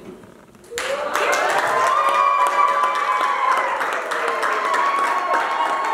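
Wedding guests break into applause and cheering about a second in: dense clapping with long, high-pitched cheering voices held over it.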